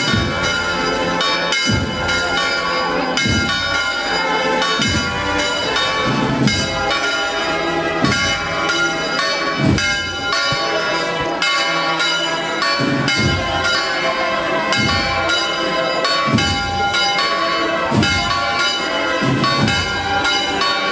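Church bells pealing. A new stroke comes roughly every second over a dense ringing of overlapping tones.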